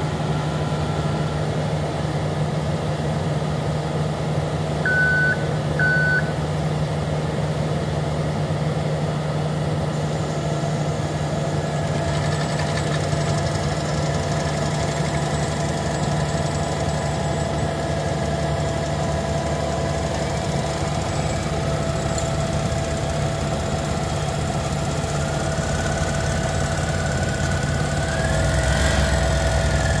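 Engine of a tracked mole plough running steadily while it pulls a length of pipe into the ground. Two short beeps come about five seconds in, and near the end the engine gets louder as the plough moves through the soil.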